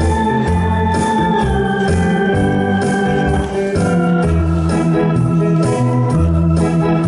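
Electronic arranger keyboard played live in an organ voice: held chords and melody over a bass line and a steady drum-machine beat, as music for sequence dancing.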